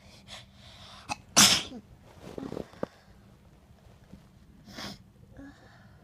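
A person sneezing once, loudly and suddenly, about a second and a half in.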